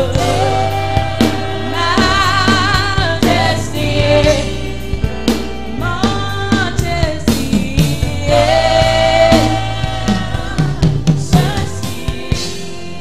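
Live gospel worship song: a woman's lead vocal holding long notes with vibrato, backed by a group of singers and a band with drum kit and bass. The drums drop out near the end, leaving held notes.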